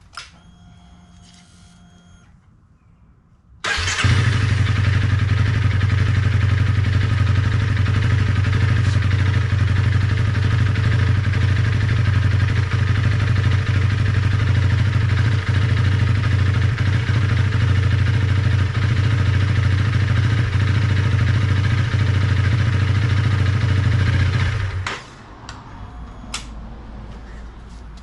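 Honda CRF300L Rally's single-cylinder engine starting about four seconds in and idling steadily for some twenty seconds, then shut off. It is run briefly after fresh oil has been added, to circulate the oil before the level is rechecked.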